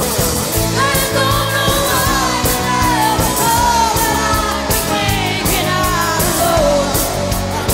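Live band playing rock music: a steady drum beat and bass under a bending melody line.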